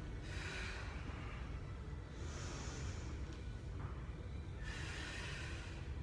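A woman breathing hard through a set of barbell back squats: three audible rushes of breath, about a second and a half apart, over a steady low hum.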